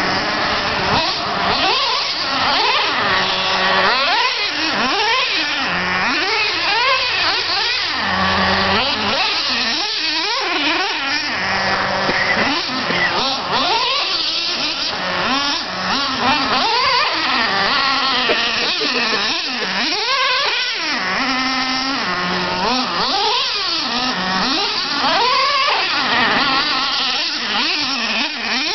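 Traxxas Slayer RC truck's 3.3 two-stroke nitro engine revving up and down over and over as the truck is driven. It makes a high whine whose pitch climbs and falls every second or two.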